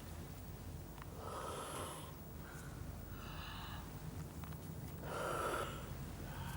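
Breathy, hissing exhalations from a person, two stronger ones about a second in and about five seconds in, with a weaker one between, over a steady low hum.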